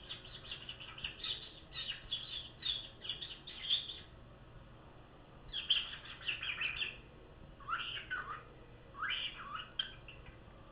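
Pet cockatiel chirping and chattering in quick runs of short high notes, then two lower sliding calls near the end.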